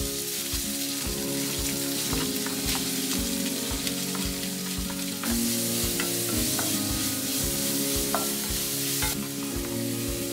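Diced ham and kimchi sizzling in a hot stainless-steel frying pan while being stir-fried, with short clicks and scrapes of a wooden spatula against the pan. The sizzle grows louder about halfway through for a few seconds.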